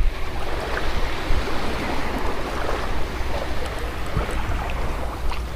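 Waves washing on a sandy beach, a steady rushing noise, with wind rumbling on the microphone.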